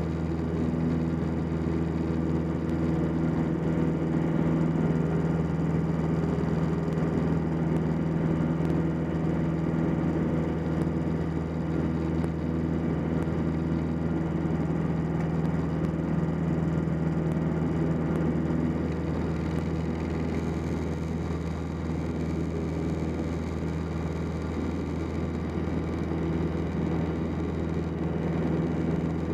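Single-engine light airplane's piston engine and propeller running steadily, heard from inside the cockpit as a constant drone. The higher tones thin out for a few seconds about halfway through, then come back.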